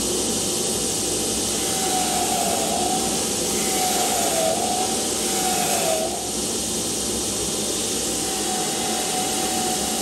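Belt grinder running while a tamarisk wood hatchet handle is sanded against the belt: a steady hiss with a whine that dips in pitch three times in the middle, then holds steady.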